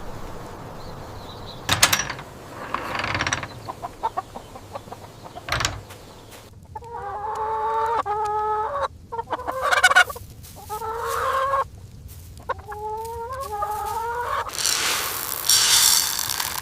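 Chickens calling: a run of drawn-out calls that step up and down in pitch, after a few scattered knocks, with a short rushing hiss near the end.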